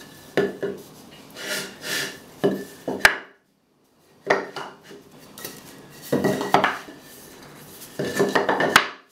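Short lengths of pine 2x4 being picked up, set down and shuffled on a wooden workbench: wood knocking and scraping on wood in several bursts, with sharp clacks. There is a gap of about a second of silence a few seconds in.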